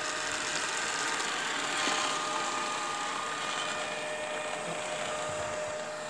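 Beko RS 2121 robot vacuum running: the steady whirr of its suction fan and brushes, with a faint constant whine.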